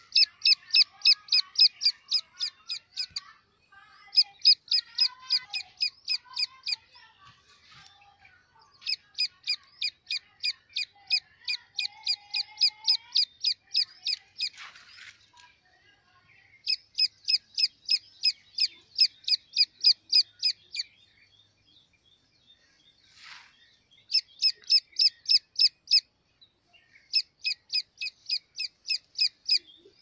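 Grey francolin chick peeping: fast runs of short, high, evenly spaced peeps, about six a second, in bouts of a few seconds broken by short pauses.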